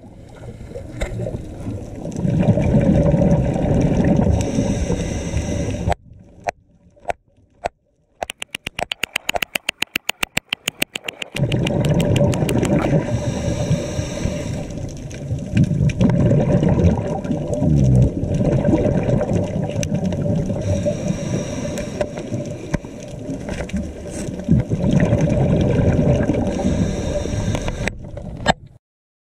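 Underwater sound of a diver working on the seabed: rushing bubble noise that swells and fades every few seconds, broken about a quarter of the way in by a quiet spell with a rapid, even run of clicks, and later a few sharp knocks as a rock hammer works at the seabed.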